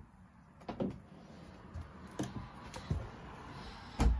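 Wooden companionway steps, which form the engine-compartment cover, being handled and closed: a few light knocks, then a heavy thump near the end as the cover comes down.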